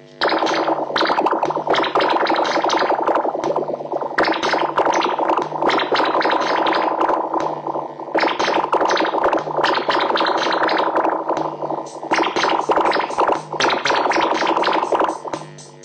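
Distorted, effects-heavy music: a dense, noisy wall of guitar-like sound with a low note recurring underneath, dropping out briefly near the end.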